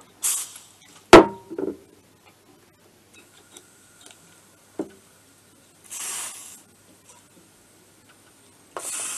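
Three short hisses, one near the start, one about six seconds in and one at the end, as WD-40 aerosol is sprayed and compressed air is let into a two-stroke moped engine under a leak test. A sharp knock about a second in is the loudest sound, and a few light clicks come from handling.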